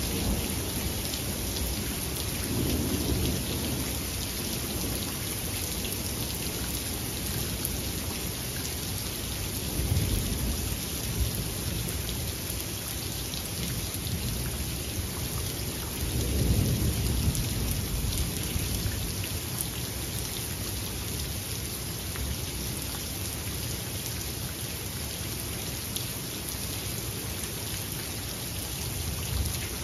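Steady rain falling, with low rolls of thunder rumbling three times. The longest and loudest roll comes a little past the middle.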